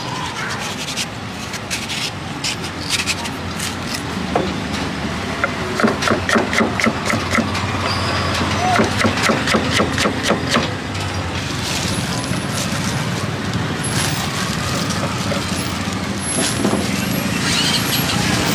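Rapid, even scraping or knocking strokes, about four a second for several seconds mid-way, over steady street traffic noise and voices.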